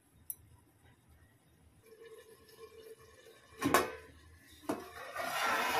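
A steel plate used as a pot lid clinks against the rim of a metal pot, once sharply with some ringing and a second time more softly, as it is lifted off with a cloth. In the last second comes a hiss of steam and bubbling from the simmering kofta curry underneath.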